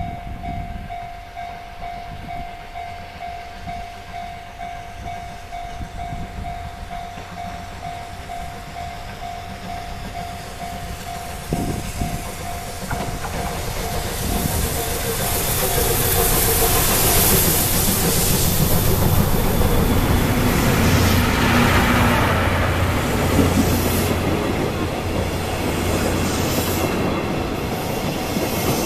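C58-class steam locomotive C58 363 hauling its coaches, approaching and growing louder until it passes close by about two-thirds of the way in. Near the end the coaches roll past with wheels clacking over the rail joints.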